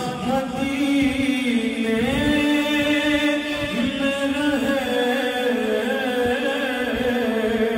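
A solo male voice singing a naat, an Urdu devotional poem, into a microphone, drawing out long held notes that waver and bend in pitch.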